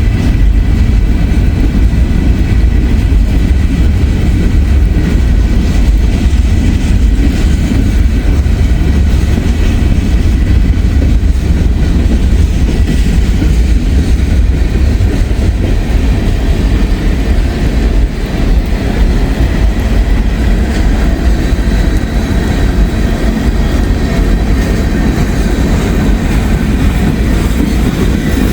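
Freight train cars rolling past at close range: a steady, heavy low rumble of wheels on rail with some clickety-clack over the joints.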